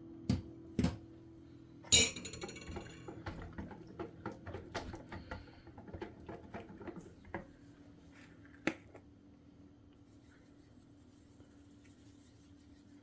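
Kitchen dishes and utensils clattering: a couple of knocks, then a louder ringing clink about two seconds in, followed by a run of quick light taps and clinks and one more knock later on. A low steady hum runs underneath.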